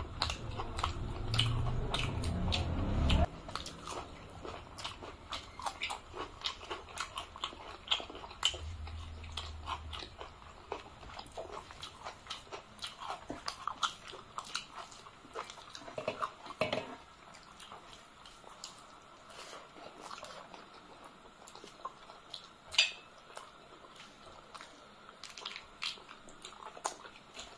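Close-miked eating sounds as two people eat rice and curry with their hands: chewing, lip smacks and mouth clicks. A louder low rumble runs through the first three seconds, and there is one sharper click about 23 seconds in.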